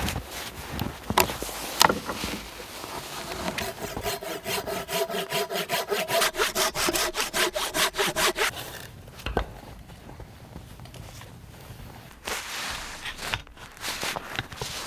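Hand saw cutting through a log with quick, even back-and-forth strokes. The sawing stops for a few seconds past the middle, then starts again near the end.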